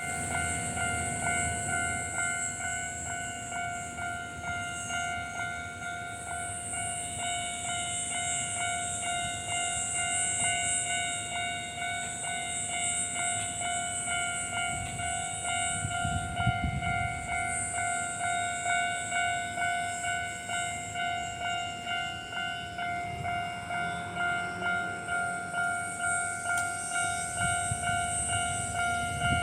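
Japanese level-crossing warning bell ringing steadily, a rapid, even electronic clang repeating throughout. Low rumbling from train movement comes in about halfway through and again near the end.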